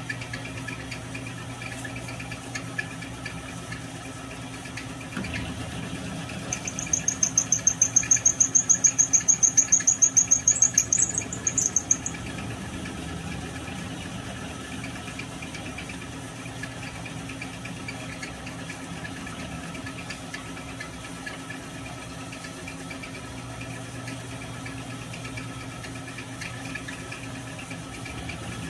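Small milling machine running with its end mill cutting aluminium, a steady motor hum. From about 6 to 12 seconds in, the cutter gives a loud, high-pitched squeal that pulses rapidly, about six times a second, then drops back to the hum.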